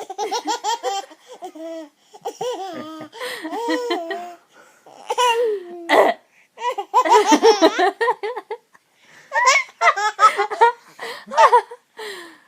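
A baby laughing in repeated bouts of high-pitched belly laughs and giggles, with short pauses between the bouts.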